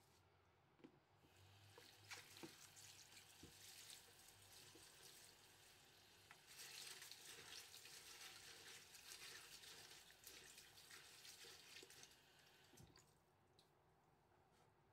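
Kitchen tap running into a stainless steel sink as shredded cabbage is rinsed under the stream, with a few light knocks; the water stops near the end.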